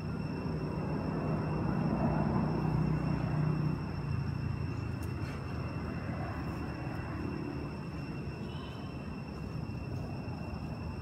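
Low, steady rumble of a distant engine, louder for the first four seconds, with two thin steady high tones above it.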